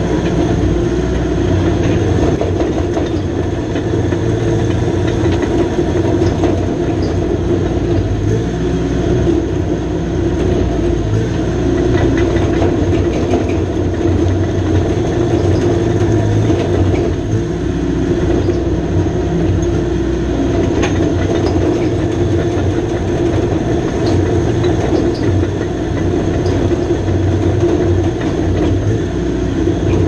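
John Deere 450J crawler dozer's four-cylinder diesel running steadily at working speed, with the clanking of its steel tracks, as it rakes through stumps and brush.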